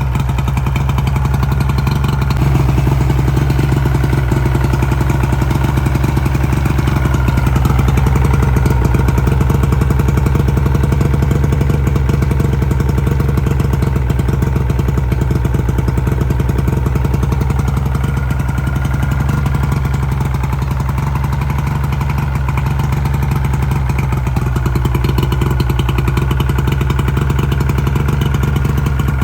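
Three-cylinder outboard motor running steadily, its firing pulses fast and even. The owner says it runs but most likely needs fine-tuning of the carburettor.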